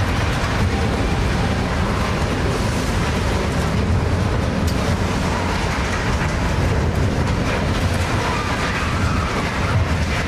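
Loud, continuous low rumble and grinding of a ship's steel bow forcing its way onto and over a concrete quay, crushing the dockside.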